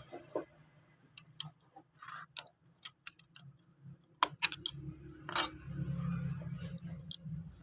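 Scattered light clicks and taps of parts and tools being handled while the big timing-chain guide roller is fitted into a Honda CD70 engine, with a few sharper ones about four to five and a half seconds in. A faint low hum underneath.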